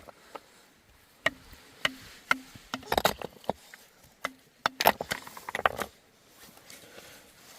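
Irregular sharp knocks and clatters in two clusters, with quieter noise after about six seconds.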